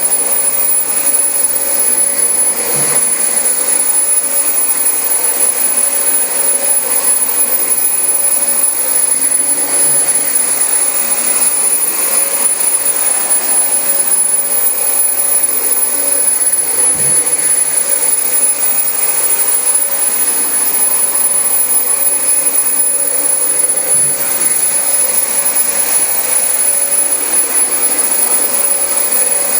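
Dyson DC25 upright vacuum cleaner running steadily over carpet: an even rushing noise with a steady hum and a thin high whine.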